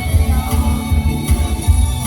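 Loud pop dance music with a heavy, pulsing bass beat.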